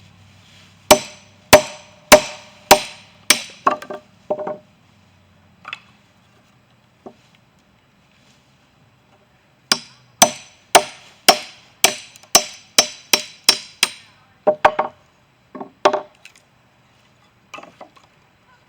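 Kindling wood being chopped: sharp, regular chops about two a second, first a run of about five, then after a pause of several seconds a run of about ten.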